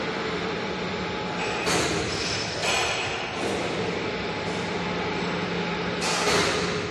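Steady mechanical din of factory workshop machinery with a low hum, broken by several brief, louder rushing sounds about two, three and six seconds in.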